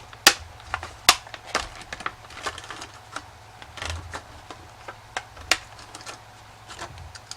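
Irregular sharp clicks and taps from small parts and hand tools being handled and set down on a work surface, with a few louder knocks.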